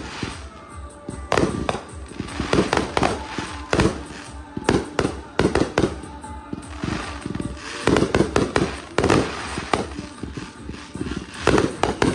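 Fireworks going off: a long run of sharp bangs and crackling bursts coming in dense clusters, loudest about eight seconds in and again near the end.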